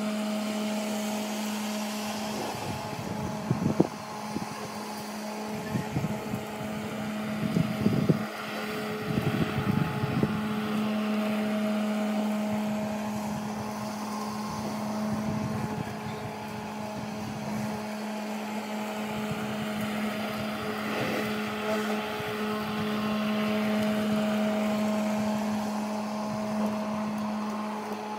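Cordless battery-powered push lawn mower running, its electric motor and blade giving a steady, even-pitched whine while it cuts grass, with a few louder rough bursts between about three and ten seconds in.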